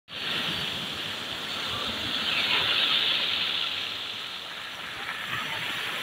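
Sea waves breaking and washing up over a pebble beach, a steady surf hiss that swells about two to three seconds in and eases off again.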